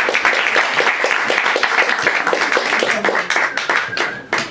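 Small audience applauding, a dense patter of hand claps that thins out and dies away near the end.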